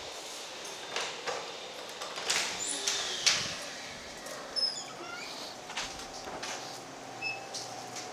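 Clicks, knocks and rustling as a restroom door is opened and walked through, the loudest knock a little past three seconds in. A brief run of short high squeaks comes about halfway through.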